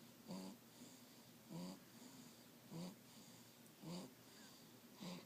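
Three-week-old newborn snoring in his sleep: a short, faint, pitched snore with each breath, coming evenly about every 1.2 seconds, five times.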